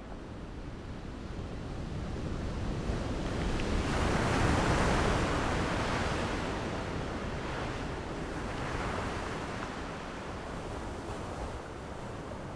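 Surf: waves washing in as a rushing noise that swells to its loudest about four seconds in, swells again more weakly near nine seconds, then eases.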